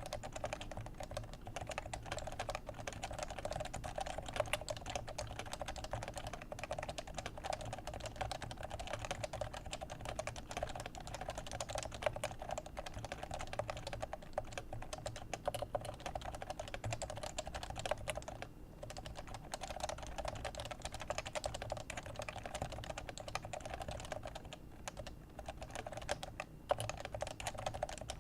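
Steady fast typing on a Leopold FC660c keyboard with Topre 45g electrocapacitive switches: a dense run of keystrokes, broken by two brief pauses, one about two-thirds of the way through and one near the end.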